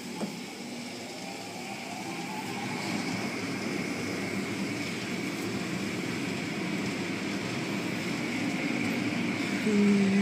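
Automatic car wash heard from inside the car: a steady rush of water and foam spray with the cloth strips swishing over the bodywork, growing slowly louder. Near the end a brief steady humming tone stands out as the loudest sound.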